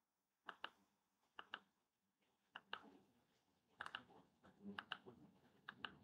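Faint key clicks from a Rii X8 wireless mini keyboard, pressed again and again to cycle the backlight color: about a dozen short clicks, several in quick pairs, a second or so apart.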